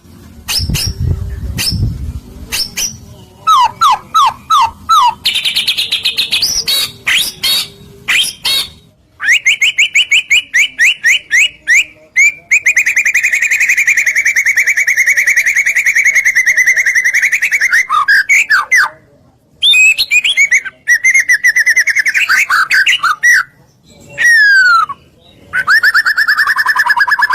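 White-rumped shama (murai batu) singing a loud, varied song of sweeping whistles, quick trills and a long fast run of repeated notes, broken by short pauses between phrases. It is the full, excited 'gacor' song kept for baiting other shamas into answering. A low rumble sits under the first two seconds.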